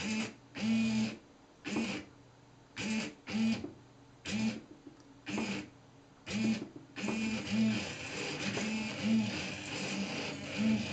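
Two hobby servos whirring in short bursts, about one a second, as they swing the fountain nozzle back and forth on its two PVC pivots. About seven seconds in, a steady hiss joins and runs on under the servo whirs.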